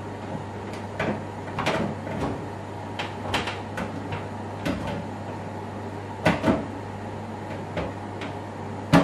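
Clicks and knocks of a cooker hood's metal mesh grease filter panel being handled and fitted back into place, with a louder double knock past halfway and a sharp knock at the end. Under them runs a steady low hum from the hood's extractor fan.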